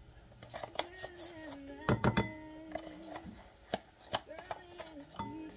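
A few sharp knocks and taps of kitchen work on a counter, the loudest about two seconds in and more near four seconds, with a faint voice in the background.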